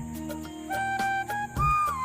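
Background music: a flute instrumental playing a held, gliding melody over low bass notes and a steady beat.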